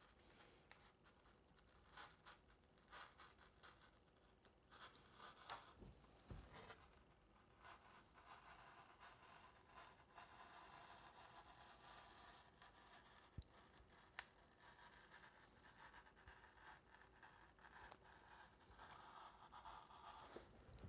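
Faint scratching and scraping of a blade cutting a 45-degree bevel along foam board, with a sharp click about two-thirds of the way through.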